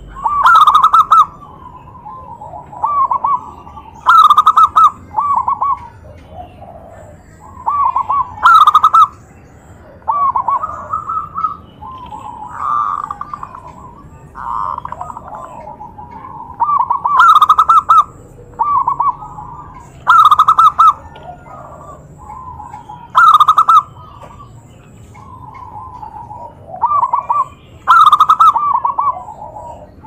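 Several zebra doves (perkutut) cooing in overlapping phrases, a loud coo every three to four seconds with softer ones between: males competing in song, the lively chorus used as a lure to set caged doves singing.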